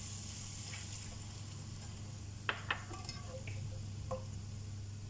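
Broccoli sizzling and simmering in butter and water in a stainless steel pan over a gas burner, over a steady low hum. A spatula stirs it, with two sharp clacks against the pan about two and a half seconds in and a lighter one later.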